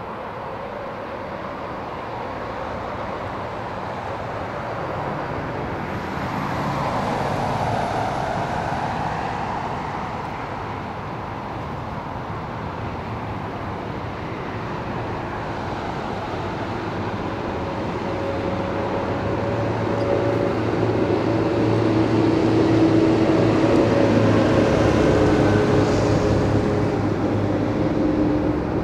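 Distant diesel locomotive engine drone, a Vossloh Euro 4000 with an EMD V16 two-stroke, growing steadily louder over the second half as the freight train approaches, over a constant low outdoor rumble.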